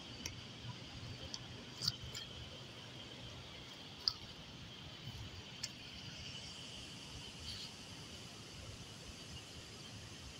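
Faint outdoor ambience: a steady high-pitched drone with a low rumble beneath it, and several short sharp clicks in the first six seconds.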